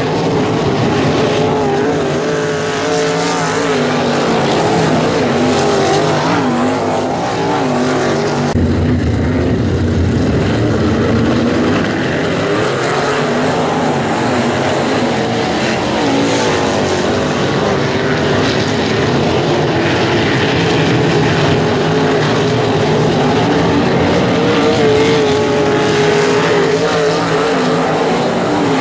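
Engines of several non-winged sprint cars running on a dirt oval, their pitch rising and falling as the cars circle. There is an abrupt change in the sound about eight and a half seconds in.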